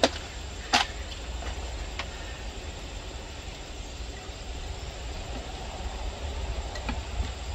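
A few sharp clicks and taps, one with a short ring under a second in, as a metal light-fixture housing is handled and screwed back together, over a steady low rumble.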